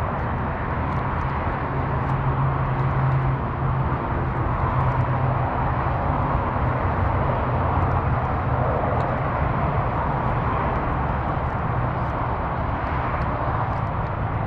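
Steady rush of heavy freeway traffic passing close by, with a low hum underneath that barely changes.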